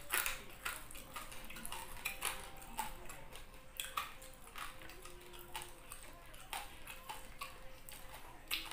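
Close-up eating sounds of crisp fried tilapia, with scattered irregular crackles and clicks as it is pulled apart by hand and chewed.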